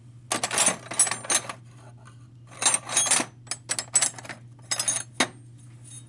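Metal wrenches clattering and clinking as someone rummages through a toolbox for a 15 mm wrench, in three bursts of clanking with pauses between.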